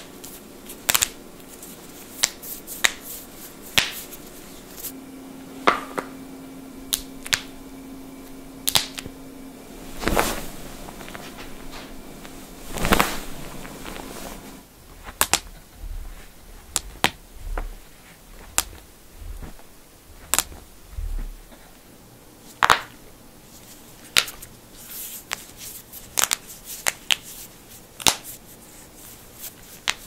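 Human finger and toe joints cracking: a string of sharp, separate pops, one every second or so, from knuckles pressed with interlaced fingers and from toes flexed against the floor. Soft low thuds come in the middle stretch.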